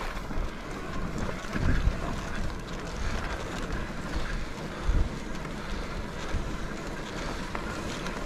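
Wind buffeting a handlebar camera's microphone as a mountain bike rolls along a dirt singletrack, over a steady rush of tyre and trail noise. Two heavier low thumps come about two seconds in and about five seconds in.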